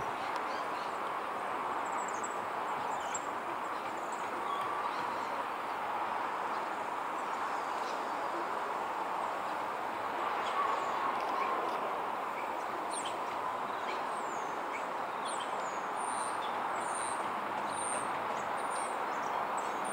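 Steady, distant drone of a De Havilland Dash 8-300's Pratt & Whitney PW123 turboprops climbing overhead. Birds chirp with short high calls, more of them in the second half.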